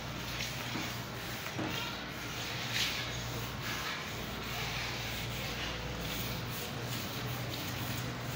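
Wire brush scrubbing ceramic floor tiles by hand in irregular scratchy strokes, cleaning the tiles before the joints are filled, over a steady low hum.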